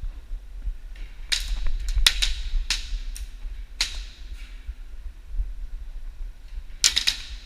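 Airsoft guns firing: scattered sharp single shots, then a quick burst of several shots near the end, over a constant low rumble.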